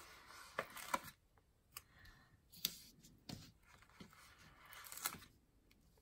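Faint paper handling as popcorn stickers are peeled from a sticker sheet and pressed onto a paper planner page: a short rustle, then a few light, separate clicks and taps, and another brief rustle near the end.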